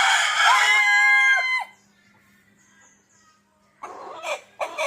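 Rooster crowing: one long crow with a held, slightly rising tone ending about a second and a half in, then two shorter calls near the end.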